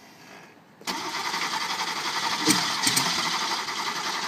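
The air-cooled flat-six of a 1977 Porsche 911 Turbo being cranked over by its starter. A fast, even churning starts abruptly about a second in, with a couple of louder pops about two and a half to three seconds in.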